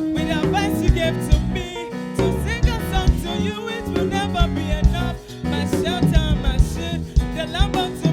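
Upbeat African gospel praise music from a live band, with a steady drum beat under a melodic line that bends in pitch. The music dips briefly about five seconds in.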